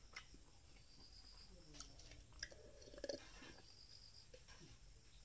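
Faint, soft chewing of a mouthful of rice and curry, with a few small mouth clicks.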